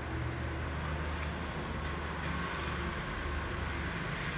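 Steady low mechanical rumble of a running engine.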